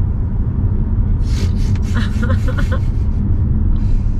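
Steady low rumble of a car being driven, heard from inside the cabin: road and engine noise.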